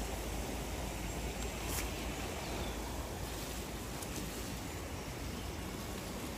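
Steady outdoor rushing noise, heaviest in the low rumble, with a couple of faint clicks about two and four seconds in.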